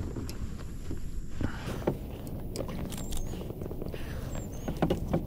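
Scattered clicks, taps and rustles of handling in a kayak over a steady low rumble, with a few faint, short bird chirps about three seconds in and again near the end.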